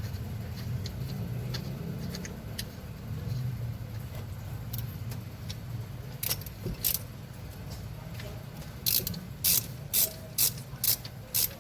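Sharp metallic clicks of hand tools working on a car engine, scattered at first, then a quick run of about six near the end, over a steady low rumble.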